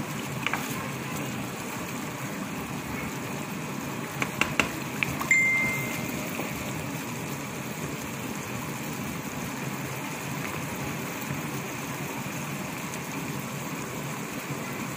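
Chicken feet simmering in sauce in a wok, a steady bubbling sizzle. A few sharp clicks come about four seconds in, followed by a short, high, steady ding.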